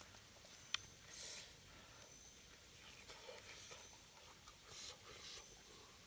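Near silence, with one sharp faint click and a few brief, soft rustles.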